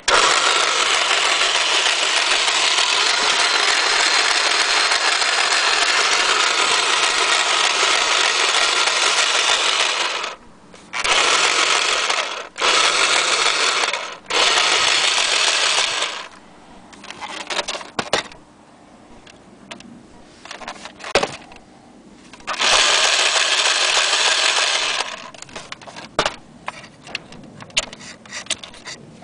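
Vintage TOMY toy sewing machine running, its motor and needle mechanism going steadily for about ten seconds. It is then switched off and on again in several short runs of one to three seconds, with small clicks of the switch and handling in between.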